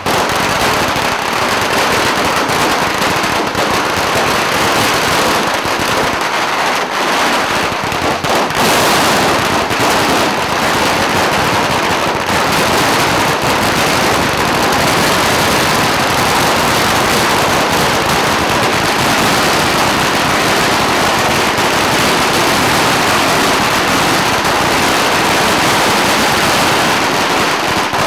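Long strings of red firecrackers (pagara) going off in an unbroken, rapid rattle of bangs.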